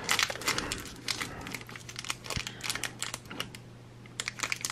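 Foil wrapper of an opened Pokémon Trading Card Game booster pack crinkling in the hands in quick, irregular crackles, busiest in the first second or so, easing off, then picking up again near the end.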